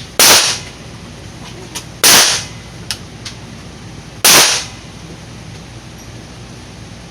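Three semi-automatic pistol shots fired in slow, deliberate succession, about two seconds apart, each a sharp crack with a short echo. They are the start of a timed six-round qualification string.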